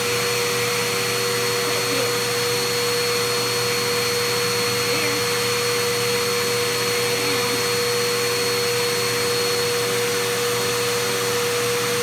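Vacuum cleaner running steadily with its hose and brush attachment worked over a husky's coat, a constant motor drone with a fainter high whine over it.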